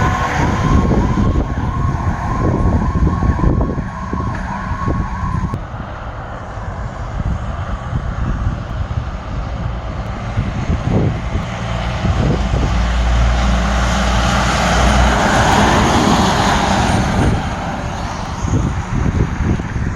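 Fire apparatus siren holding a steady tone, cut off abruptly about five seconds in. After it, the low rumble of the vehicles' engines continues, with a rushing noise that swells and fades a few seconds before the end.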